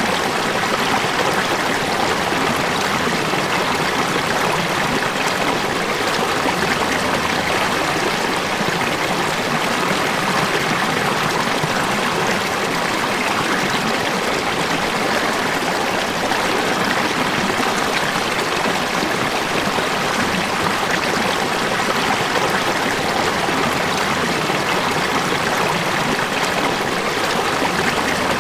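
Steady rush of falling, flowing water, an even unbroken sound with no changes.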